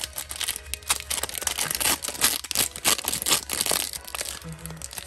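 Foil wrapper of a Pokémon trading card booster pack crinkling and tearing as it is ripped open by hand, a dense run of crackles that thins out near the end.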